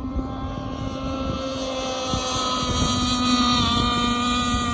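Bonzi Sports 47 Skater gas RC catamaran's two-stroke engine running flat out at a steady high pitch as the boat speeds across the water. It grows louder as it nears and dips slightly in pitch about three and a half seconds in, with wind on the microphone underneath.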